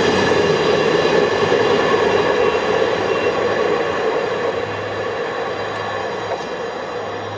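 Container freight train's wagons rolling past on the rails, the wheel and rail noise fading gradually as the tail of the train draws away.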